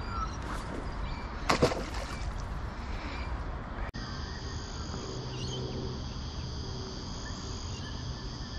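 Outdoor riverside ambience with a low rumble and one short call about a second and a half in. After an abrupt cut about four seconds in, a steady high-pitched insect chorus rings on.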